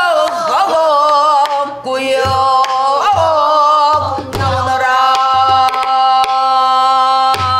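A woman singing pansori in long held notes with wide vibrato, accompanying herself on a buk barrel drum. A handful of low drum strokes and sharp stick clicks mark the beat under the voice.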